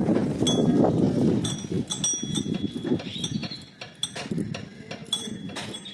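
Metal hand tools clinking and tapping against engine parts in irregular sharp strikes, some with a brief metallic ring.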